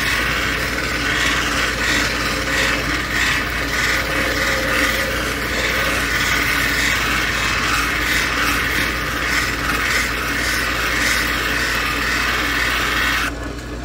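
Plume agate cabochon held on a dop stick and sanded against the spinning wheel of a cabochon machine: a steady, rough grinding hiss over the low hum of the machine's motor. It cuts off abruptly just before the end.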